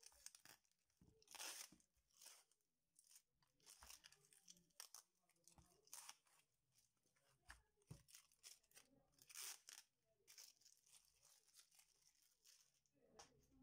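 Faint, irregular tearing and crinkling of packing tape being peeled off a parcel wrapped in plastic and bubble wrap, the loudest rips about a second and a half in and around nine to ten seconds in.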